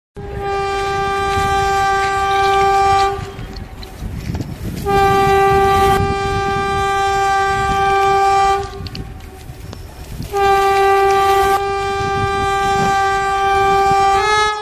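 An approaching train's horn sounding three long blasts of one steady note, each about three to four seconds long, over a low rumble. The note lifts slightly in pitch at the very end.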